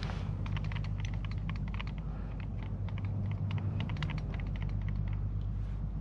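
Metal cooking tongs clicking and tapping against a small pot as leaves are turned in it, a quick irregular run of light clicks that stops about a second before the end. A steady low hum runs underneath.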